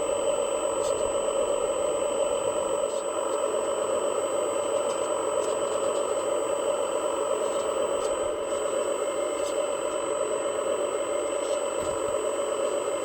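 Radio-controlled model truck's motor running with a steady, even hum.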